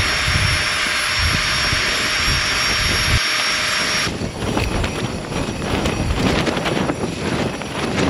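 Small electric air pump running steadily with a high whine, inflating a sleeping mat through its valve, then cutting off suddenly about four seconds in. Gusty wind buffets the tent underneath and carries on after the pump stops.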